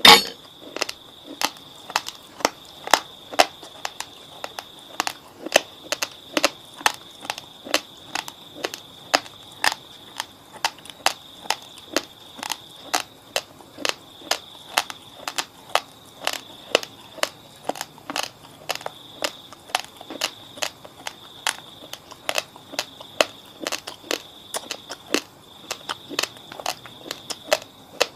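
Close-miked chewing of raw, fridge-chilled basmati rice: sharp grainy crunches about two to three a second, steady throughout. A faint, steady high-pitched whine sits underneath.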